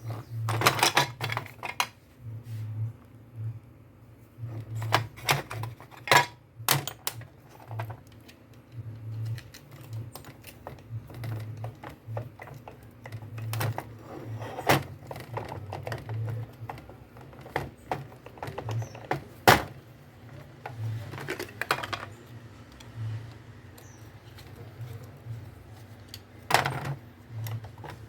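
Metal parts of a car starter motor and hand tools clicking and clinking on a workbench during reassembly, with scattered sharp knocks, the loudest about six and twenty seconds in. A low hum comes and goes underneath.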